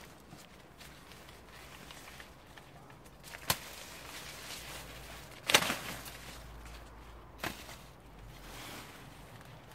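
Three sharp snaps about two seconds apart, the middle one loudest, over a faint rustle: dry corn being harvested by hand.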